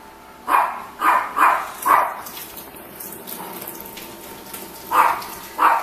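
Dog barking in short separate barks, four in quick succession in the first two seconds, then two more near the end, over a kitchen tap running onto hands being washed in a stainless sink.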